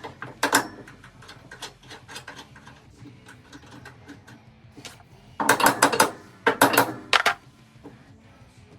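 Hand ratchet wrench clicking as suspension bolts are tightened, with scattered clicks and knocks of metal tools. The clicking comes in two short bursts a little past halfway.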